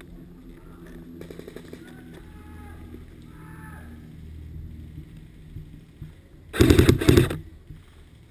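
Airsoft rifle firing two short, rapid full-auto bursts back to back, close and loud, a little over halfway through.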